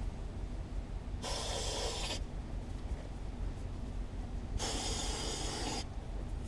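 Pickup truck running with a steady low rumble. Two breathy hisses, each about a second long, come over it about a second in and again about five seconds in.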